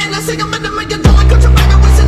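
Hip hop music track. The heavy bass drops out at first, then comes back in with the full beat about a second in.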